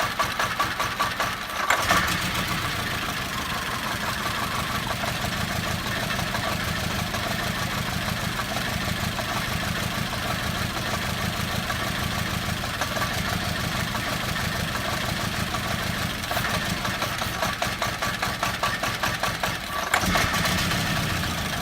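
VW Beetle 2.0 petrol four-cylinder engine idling roughly and unevenly, misfiring intermittently: it is dropping cylinders, at times running on as few as one. The beat lurches in the first two seconds and again for a few seconds near the end, with a brief dip just before the end.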